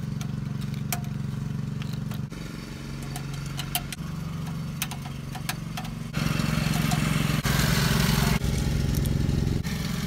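Small metallic clicks and ticks as a Phillips screwdriver and screws work against a car radio's steel anti-theft mounting bracket, over a steady low engine hum. About six seconds in, a louder rushing noise comes in and holds for about three seconds.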